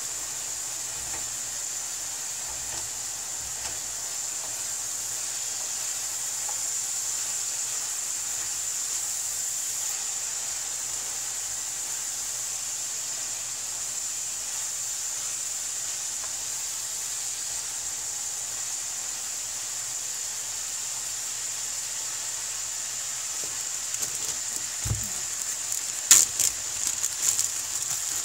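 Ground beef sizzling steadily in a frying pan as it is stirred with a wooden spoon. Near the end come a few sharp knocks and clicks.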